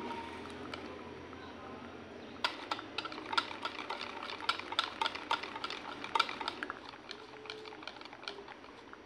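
Wire whisk beating thin pancake batter in a plastic mixing bowl: a soft wet stirring at first, then from about two and a half seconds in a quick run of sharp clicks, about four or five a second, as the wires strike the bowl. The clicks thin out near the end.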